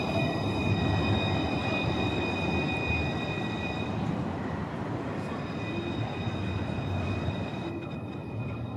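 Alstom Citadis tram running along its street track and drawing away, its sound slowly fading, with a steady high whine over the rumble of the running gear.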